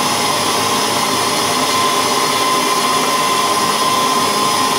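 Electric mixer motor running steadily with a faint high whine, beating a liquid mix of warm milk, sugar, butter and yeast.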